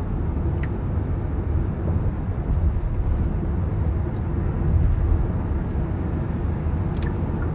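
Steady low rumble of a car heard from inside its cabin, road and engine noise, with three faint ticks spread through it.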